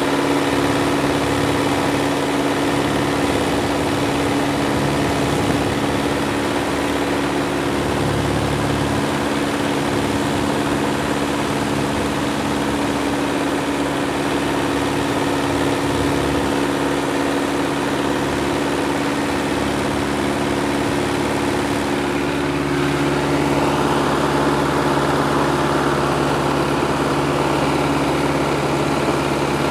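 Piper Cub's piston engine and propeller droning steadily in cruise flight, heard from inside the small cockpit along with the rush of air. About three-quarters of the way through, the drone shifts in tone and grows slightly louder.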